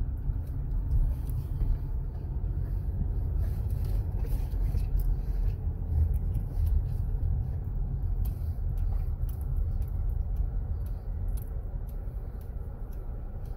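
Steady low rumble of a car moving slowly, heard from inside the cabin.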